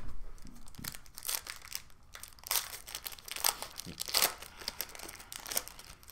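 Foil wrapper of a hockey trading card pack crinkling in irregular bursts as it is handled and opened by hand.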